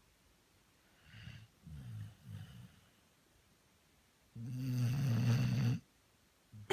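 Labrador retriever snoring in its sleep: three short, soft snores in the first half, then after a pause one long, louder snore lasting about a second and a half.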